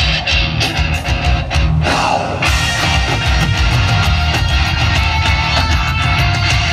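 Heavy metal band playing live through a concert PA: distorted electric guitars, bass and pounding drums. The sound grows fuller and brighter about two and a half seconds in, as cymbals come in.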